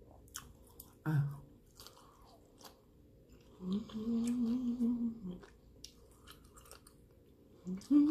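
Close-up chewing of food with scattered small wet mouth clicks, and a held closed-mouth "mmm" of enjoyment at steady pitch near the middle, the loudest sound. A short low "mm" comes about a second in, and another "mmm" begins near the end, falling in pitch.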